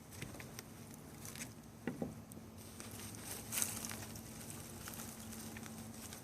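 Hands rustling and scraping through loose potting soil, with scattered small clicks and soft knocks as tubers are picked out. A louder rustle comes a little past the middle, over a faint steady low hum.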